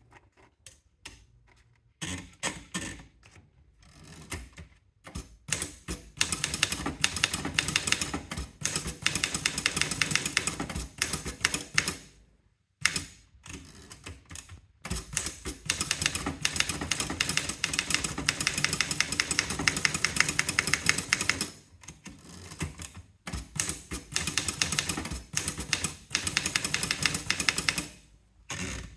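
Remington Mark II typewriter being typed on: rapid runs of key strikes, sparse at first and then in three long bursts with short pauses between them.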